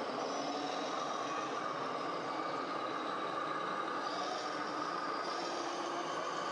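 Radio-controlled model trucks and machines running: a steady whine over an even mechanical noise.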